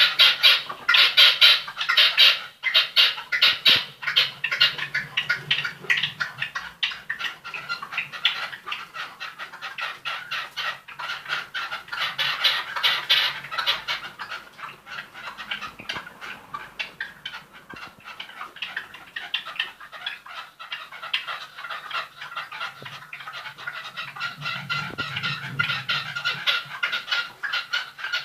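Birds calling in a rapid, continuous chatter of short chirps.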